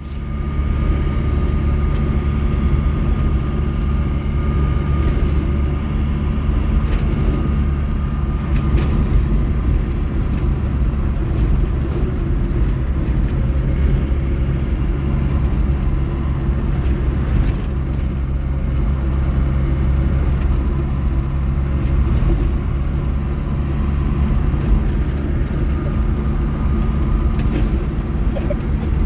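A car driving along at a steady pace: a loud, even rumble of engine and road noise that cuts in suddenly at the start.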